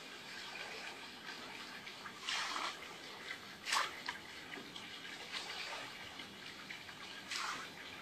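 Water splashing lightly: three short splashes, about two, four and seven seconds in, the middle one the loudest, over a faint steady wash of water.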